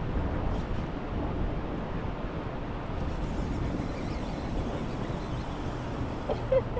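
Steady rushing noise of fast river current, with wind on the microphone.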